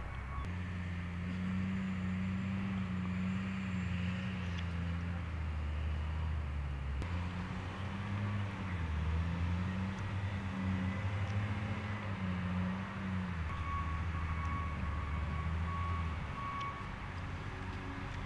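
Bomag single-drum roller's diesel engine running, its pitch dipping and rising as it works. A reversing alarm beeps about five times near the end.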